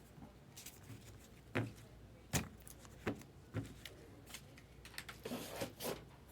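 Trading cards being handled on a table: a handful of separate light knocks and clicks, then a short rustle near the end.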